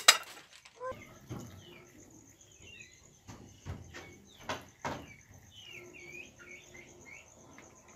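Small birds chirping in short, curving calls over a steady, high-pitched insect trill, with several dull knocks scattered through.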